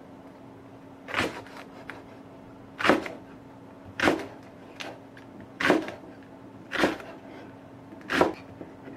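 Six separate knocks and clunks, roughly one to one and a half seconds apart, each brief with a short ring after it, like household objects or doors being handled. A faint steady hum runs underneath.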